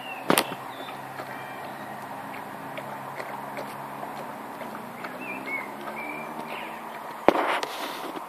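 Two sharp knocks, one just after the start and a louder one near the end, over steady outdoor background with a few short bird chirps in between.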